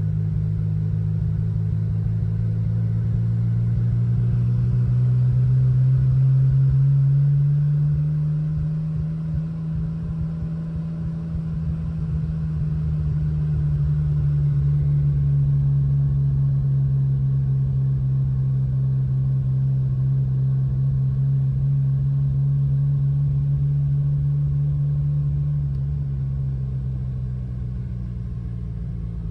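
1982 DeLorean DMC-12's PRV V6 engine running while driving, heard from inside the cabin. It rises in pitch and loudness as the car accelerates a few seconds in, holds steady, then eases off near the end.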